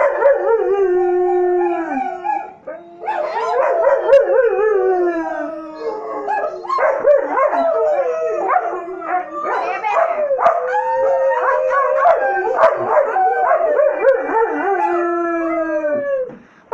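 Big dogs howling: long, wavering howls that slide up and down in pitch and overlap one another, with a short break about two seconds in.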